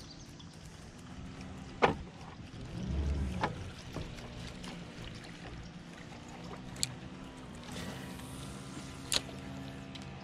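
Spinning rod and reel handled while a lure is retrieved across a pond, under a low steady hum. A few sharp clicks stand out, the loudest about two seconds in and another near the end, with a dull thump about three seconds in.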